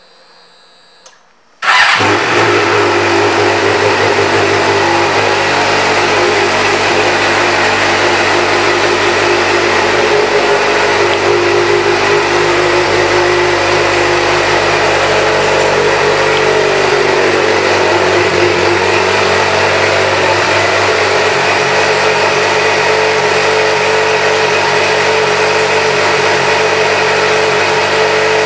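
2007 Suzuki GSX-R600's inline-four engine, fitted with an aftermarket exhaust, starting abruptly just under two seconds in after a faint click, then running at a steady idle.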